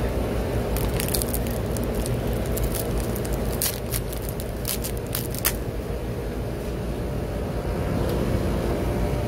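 Eating sounds at a tabletop pork barbecue: a run of sharp clicks and crackles through the first half, over a steady low rumble.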